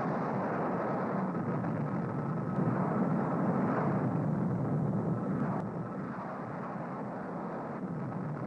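Steady engine noise of an aircraft in flight, a dense sound slightly louder in the middle.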